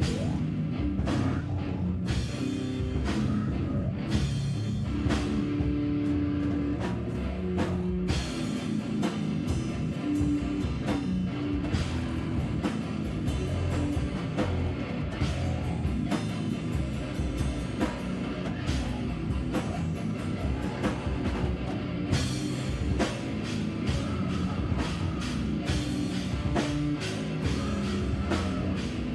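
Live band playing loud heavy rock, with a drum kit hitting steadily under guitar and bass.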